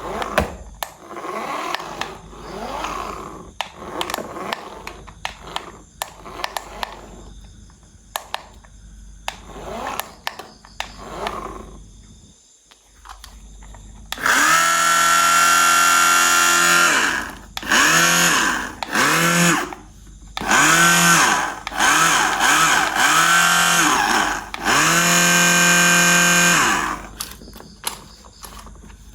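Clicking and rattling of plastic toy parts being handled, then a battery-powered toy sounding off in about six loud, pitched bursts in the second half, each rising and then falling in pitch.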